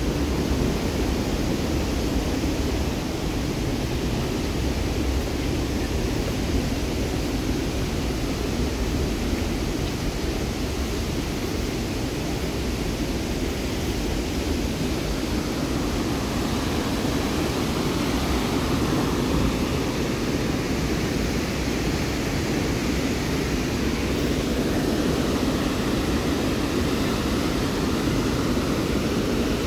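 Merced River whitewater rushing below the trail as a steady, unbroken noise.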